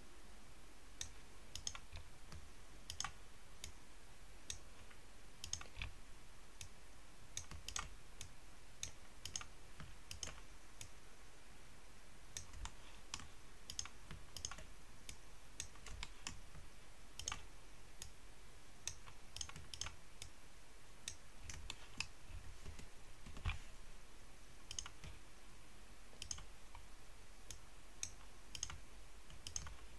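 Irregular clicks of a computer mouse and keyboard, one or two a second, over a faint steady hiss.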